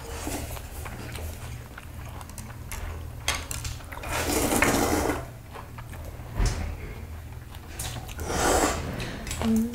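Noodles slurped from a metal bowl, two long slurps about four and eight seconds in, with light clicks of chopsticks against the bowl, over a steady low hum.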